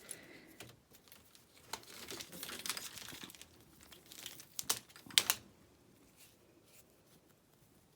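Old bike locks and chains being handled: a crinkling rustle with a few sharp clicks and knocks, the loudest just after the midpoint, then quieter handling noise.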